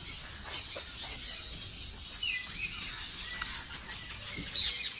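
Aviary birds chirping: many short, high chirps from several birds, overlapping throughout.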